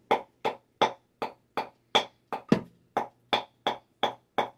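Wooden pestle pounding dried bay leaves to powder: a steady rhythm of short knocks, about three a second, with one harder blow about halfway through.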